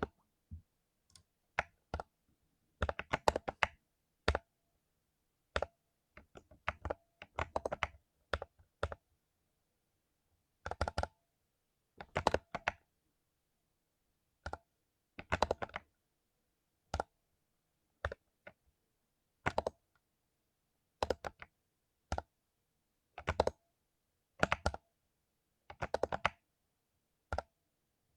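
Mechanical keyboard with lubed Cherry MX Silver linear switches being typed on, in short irregular bursts of keystrokes separated by pauses of a second or so.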